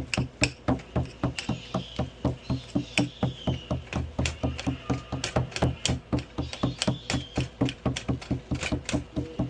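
A cooking utensil striking and scraping in a pan, chopping up shredded chicken simmering in broth, with quick, even knocks several times a second.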